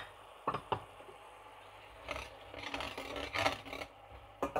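A hand pepper mill grinding black pepper over a pan of curry sauce, and a slotted spatula scraping through the sauce in the metal pan: a few sharp clicks in the first second, then about two seconds of rasping scrapes, with one more knock near the end.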